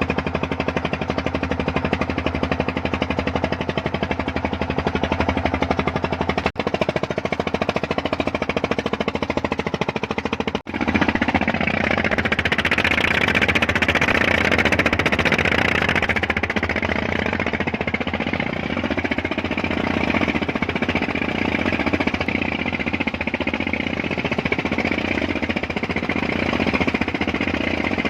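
A freshly repaired engine running steadily on its test run, with a fast even firing beat. About eleven seconds in it gets louder and brighter.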